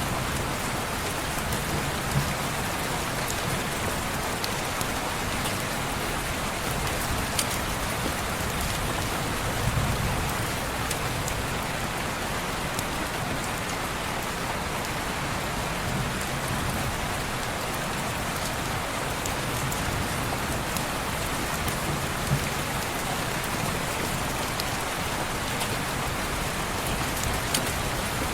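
Steady rain falling on a window, an even hiss with scattered sharp ticks of drops or crackles, and a low rumble that swells now and then.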